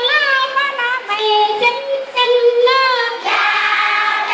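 A child singing a melody in long held notes, some sliding in pitch.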